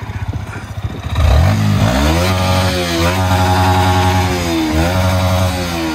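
Yamaha YZF-R125's single-cylinder four-stroke engine revved while the bike stands still. It runs low at first, then the revs climb steeply about a second in and are held high with two brief dips, and they begin to fall near the end.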